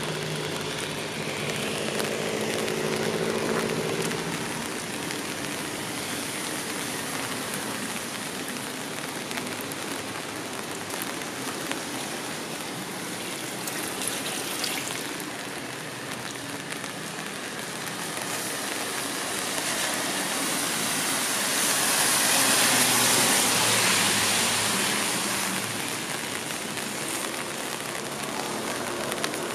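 Steady rain falling on a city street, an even hiss. A vehicle engine hums low under it at the start, and about two-thirds of the way through a louder hiss swells for a few seconds and fades.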